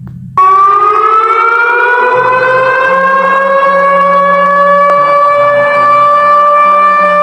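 An air-raid style civil defense siren sounding: after a brief drop-out it starts about half a second in and winds slowly up in pitch, then holds one long loud tone. A low steady hum runs underneath.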